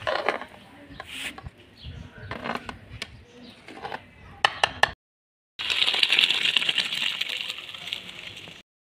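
A metal spoon scraping and stirring rice in a metal pot, with several sharp clinks against the pot near the middle. After a short gap, a steady hiss of water draining from boiled rice in a plastic colander.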